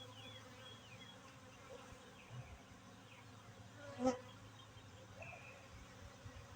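Honeybees buzzing around an open hive, with single bees' buzz sliding in pitch as they fly past close by. A short knock comes about four seconds in.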